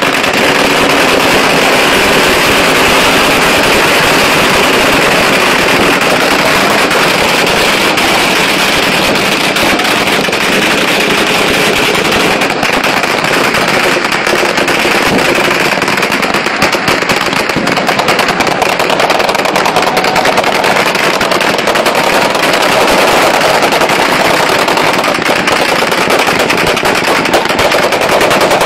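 Many firearms shooting into the air at once, automatic bursts and single shots overlapping into one dense, unbroken crackle of gunfire with tracer rounds.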